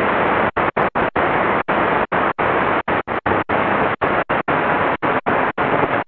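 Shortwave static from a Qodosen DX-286 portable radio's speaker while it is tuned quickly up through the 25-metre band between stations: a steady rush of hiss broken by short silent dropouts, about three a second, as the set mutes on each tuning step.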